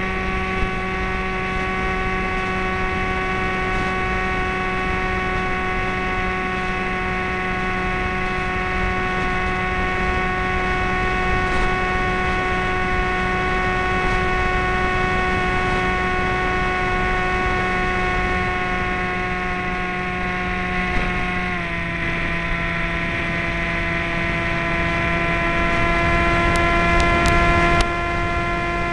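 Motor and propeller of a radio-controlled FPV airplane in flight, heard from its onboard camera: a steady high hum. About 22 seconds in the pitch steps down slightly as the throttle is eased.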